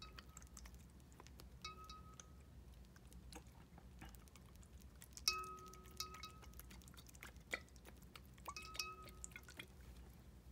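Faint small clicks and drips, with three short ringing clinks about three seconds apart: a pipette tapping the glass of a 48 oz aquarium while the water is stirred, the glass ringing briefly at each tap.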